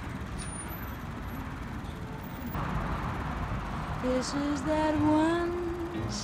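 Steady outdoor background noise with a low traffic rumble, then soft background music with a singing voice gliding up and down, coming in about four seconds in.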